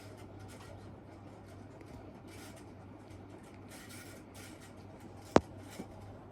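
Casablanca Delta ceiling fan motor running in reverse, with a steady low hum and a rasping, rubbing noise that comes and goes from its bad bearings. There is one sharp click about five seconds in.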